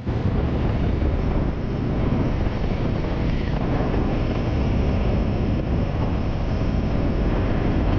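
Motorcycle riding at speed: steady wind rush buffeting the microphone over the low run of the engine, coming in abruptly at the start.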